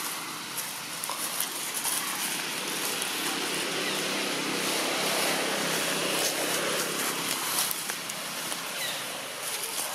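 Outdoor ambience with a motor vehicle going by: a low engine hum rises and fades over a few seconds in the middle, over a steady hiss.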